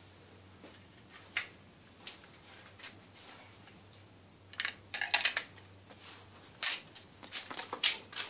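Scattered light clicks and crinkles of a plastic-wrapped knife care kit and its packaging being handled, in short clusters about a second in, around five seconds and near the end, over a faint steady low hum.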